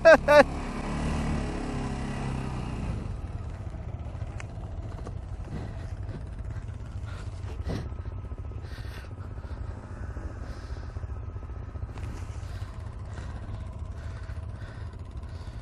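ATV engine running at a low, steady idle, a little louder for the first few seconds before settling, with a few faint clicks and knocks over it.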